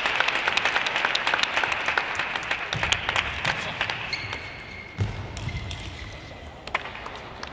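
Arena crowd applause with dense clapping, dying away over the first four seconds, then a few single sharp clicks of a table-tennis ball bouncing.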